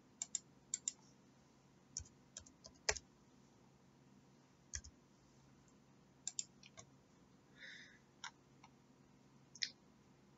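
Sparse, faint computer mouse clicks and a few keyboard keystrokes, single sharp clicks spaced out at irregular intervals.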